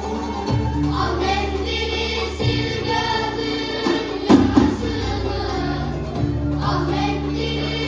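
Choir singing a Turkish folk song with a folk ensemble of bağlama, cello and davul drums, the low instruments holding steady notes beneath the voices. There are two louder beats about halfway through.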